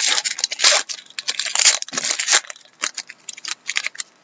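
A trading-card pack's wrapper torn open and crinkled: dense, loud crackling for about the first two and a half seconds, then lighter, scattered crinkles.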